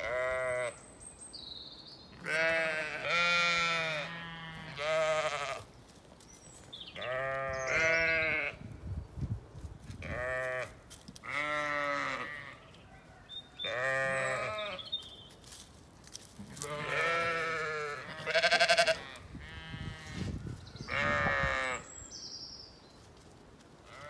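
Zwartbles sheep bleating over and over, about a dozen calls each lasting under a second, with short gaps between them.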